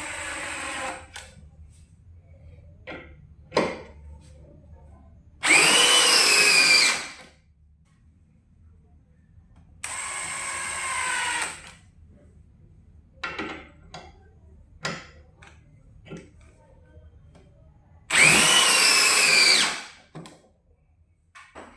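Cordless DeWalt brushless hammer drill running in short bursts of about two seconds: one run ends about a second in, a loud run comes about five seconds in, a quieter one around ten seconds, and another loud one near eighteen seconds. The motor whine rises and then settles in each loud run. A few short clicks and knocks fall between the runs.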